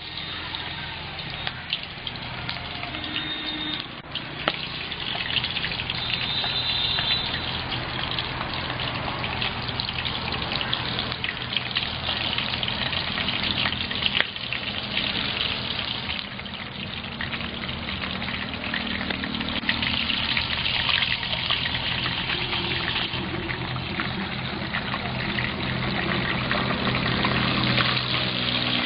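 Crabs deep-frying in hot oil in an aluminium pot: a steady, dense crackling sizzle that grows louder over the first few seconds and then holds.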